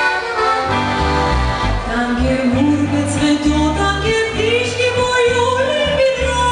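Oberkrainer polka band playing live: accordion and guitar over an oom-pah bass beat that comes in under a second in, with a woman singing.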